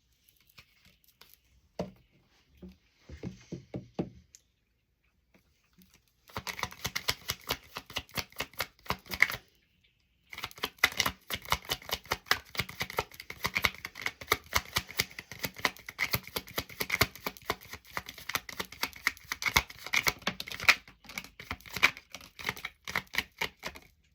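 A deck of tarot cards being shuffled by hand, making a fast, dense clatter of card edges. It comes in two long runs with a short break about ten seconds in, after a few soft handling knocks at the start.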